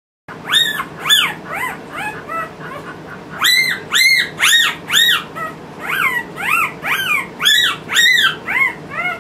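Newborn Nova Scotia Duck Tolling Retriever puppy squealing in its handler's hands: a string of loud, high-pitched cries, each rising then falling, about two a second, with a short softer lull partway through.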